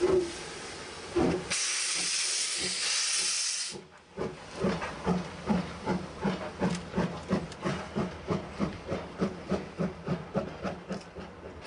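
C11 steam tank locomotive moving off in reverse: a loud hiss of steam for about two seconds, then steady exhaust chuffs at about three a second as it gets under way.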